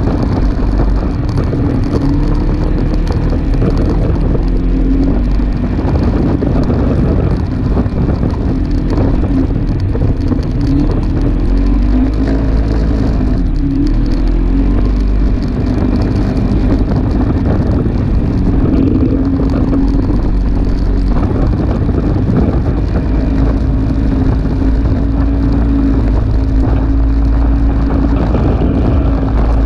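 Polaris RZR 570 side-by-side's single-cylinder engine running steadily, its pitch rising and falling with the throttle over a heavy low rumble.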